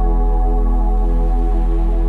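Background music: soft ambient synth music with long held notes over a steady low drone.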